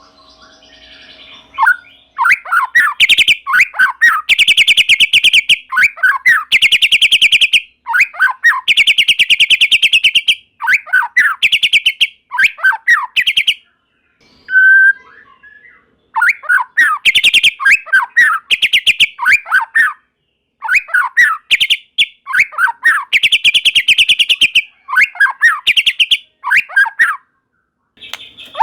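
White-rumped shama (murai batu) in full song: loud phrases of very rapid trills alternating with quick downward-sliding whistled notes, repeated with short pauses between them.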